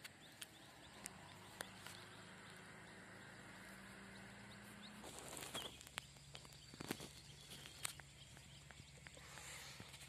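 Near silence: faint outdoor ambience with a low steady hum that drops in pitch about five seconds in, and scattered light clicks and rustles.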